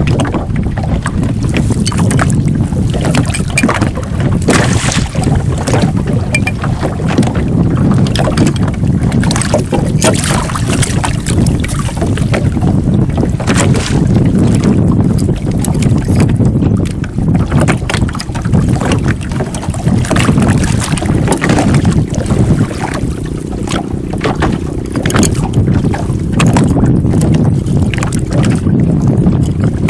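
Wind rumbling on the microphone over choppy open water beside a small boat, a loud, uneven low roar, with scattered light clicks and knocks from handling at the boat's side.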